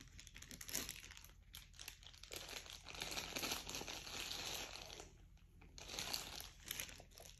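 Faint crinkling, rustling noise with scattered clicks, in two stretches: a longer one of about five seconds, then a shorter one about six seconds in.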